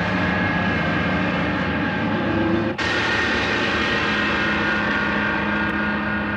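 A steady, dense mechanical-sounding drone made of many held tones, broken by a sudden cut about three seconds in, after which it carries on with a slightly changed pitch.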